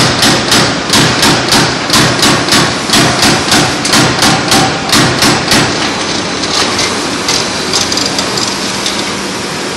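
CNC turret punch press punching sheet metal: rapid, evenly spaced strikes, about three to four a second. Near the middle the strikes stop, leaving the machine's steady running noise with a low hum.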